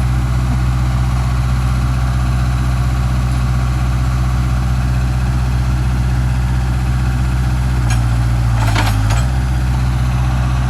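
Old backhoe's diesel engine idling steadily, with a brief change in its tone about eight seconds in.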